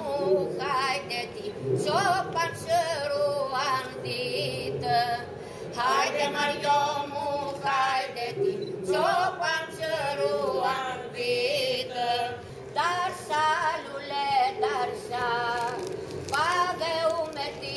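A group of women singing unaccompanied in phrases with short breaks, the melody wavering and ornamented above a steady held note.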